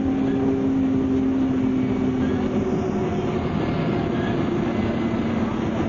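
Cummins-engined MCW Metrobus double-decker heard from inside the passenger saloon, engine and driveline running on the move with a steady drone and whine. A little under halfway through one strong tone fades, and the pitch then slowly falls as the bus eases off.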